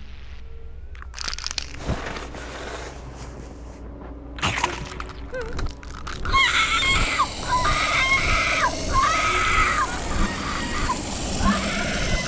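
Horror sound design: a few sharp cracks and crunches, then, from about six seconds in, a louder, sustained, wavering scream over a hiss.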